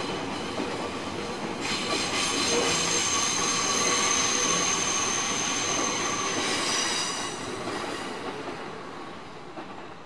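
Train running past on the tracks, with a high, steady wheel squeal from about two seconds in until about seven seconds; the running noise then fades away.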